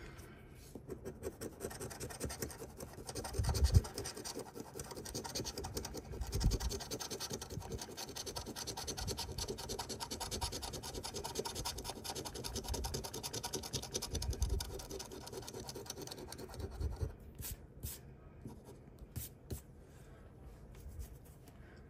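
A coin scraping the coating off a scratch-off lottery ticket in rapid repeated strokes, with a few dull bumps along the way, easing off about three-quarters of the way through into a few light scrapes.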